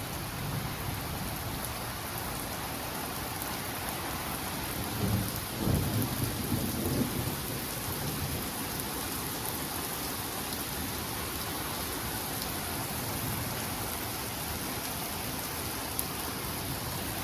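Steady rain falling, with a roll of thunder rumbling for about two seconds around five seconds in.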